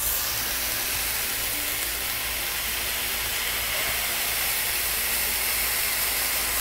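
Smash-burger beef patty sizzling on a hot flat-top griddle while held flattened under a square metal burger press: a steady hiss that starts suddenly as the press comes down.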